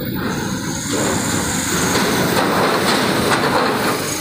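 Trucks driving off a roll-on/roll-off ferry's steel bow ramp onto a wet steel-grated linkspan: a heavy rumble of tyres and diesel engines on metal. A few loud clanks about two and a half to three and a half seconds in, as wheels cross the ramp's steel plates.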